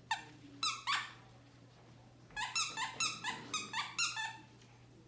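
Squeaky fish-shaped dog toy squeaked: three short high squeaks at the start, a pause, then a quick run of about eight squeaks.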